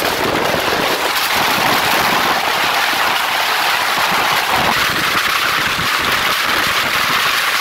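Steady, loud rush of wind and tyre noise from a car moving at highway speed, picked up by a phone held out of the open window.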